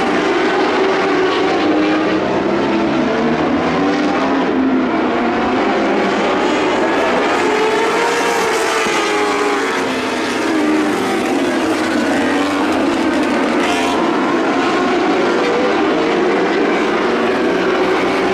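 A field of lightning sprint cars racing together on a dirt oval, several engines running at high revs at once, their pitches rising and falling as the cars pass and go through the turns.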